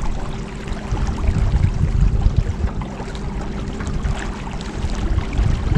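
Small boat moving on a river: water splashing and lapping at the hull with a scatter of small splashes, over a constant low wind rumble on the microphone and a steady faint hum.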